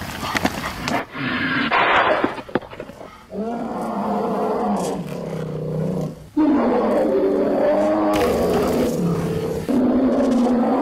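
Deep, drawn-out growling in two long stretches. The first starts about three seconds in, and the second, louder one follows a little after six seconds.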